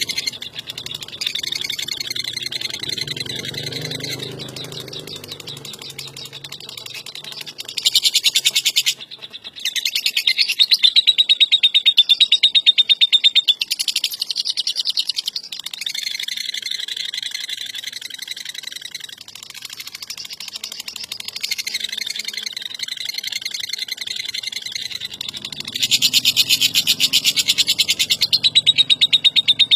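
Lovebird singing a long ngekek: a fast, rattling chatter of many notes a second that runs on with only brief breaks, swelling louder in stretches and especially near the end.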